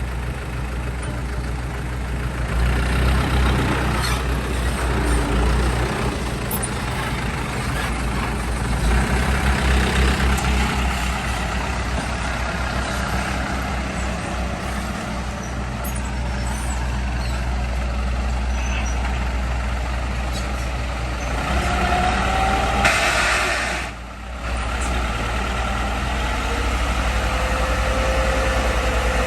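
Heavy diesel earthmoving machinery running steadily, with a brief hiss late on and a short dip in the engine sound just after it.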